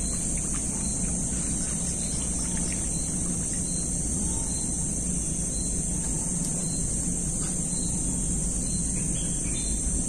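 Insects drone steadily in a continuous high whine, with faint short chirps repeating about every 0.7 seconds and a steady low rumble underneath.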